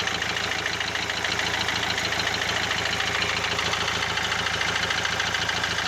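Renault 1.5 dCi four-cylinder diesel idling with a rapid, even knocking clatter. The owner cannot place this idle knock: it is still there after a rebuild and new injectors, which improved it only a little.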